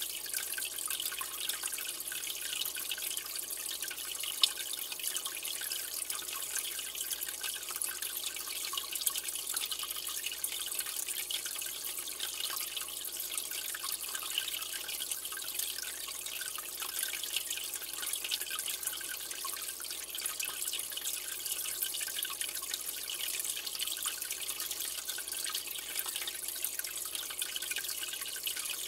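Aquarium water trickling and bubbling steadily, a high-pitched fizz with fine drips. A single short tap about four seconds in.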